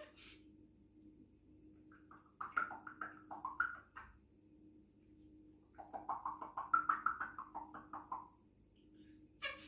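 African grey parrot vocalizing in two bursts of rapid, pulsed, pitched chatter, with a brief hissy burst near the start and another near the end.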